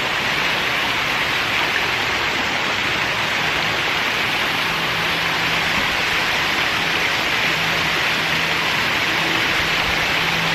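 Steady rushing of a small waterfall or stream. A faint low hum joins it a few seconds in.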